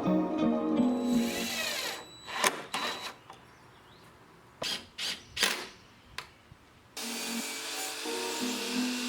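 Background music, then a few short bursts of a power drill driving screws into plywood to fasten caster wheels. The music returns about seven seconds in.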